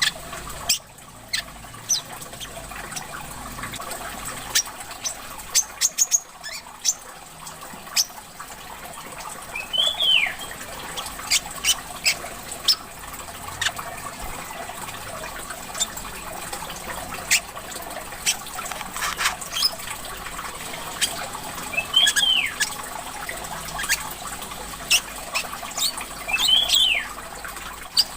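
Small caged songbirds giving many quick sharp chips, with three sweeping calls about ten, twenty-two and twenty-seven seconds in, over the steady trickle of running water.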